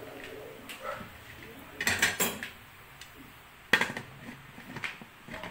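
Aluminium pressure cooker lid being put on the pot and closed. Metal clatters against metal about two seconds in, then there is one sharp clank a little before four seconds, with a few lighter knocks.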